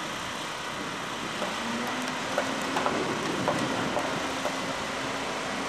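About half a dozen sharp, irregularly spaced knocks from carpenters working on wooden roof trusses, over a steady background hiss. A faint low steady hum comes in about a second and a half in.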